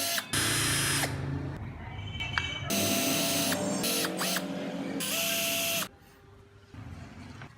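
Small electric rotary tool carving wood, running in three short bursts, each with a whine that rises as the motor spins up and falls as it stops; it goes much quieter near the end.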